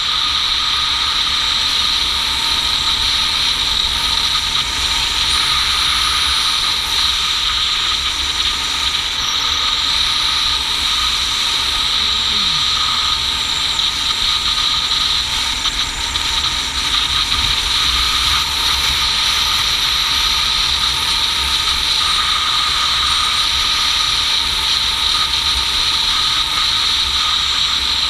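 Motorcycle riding at a steady speed: steady engine and wind noise picked up by a GoPro action camera mounted on the bike, with no change in speed.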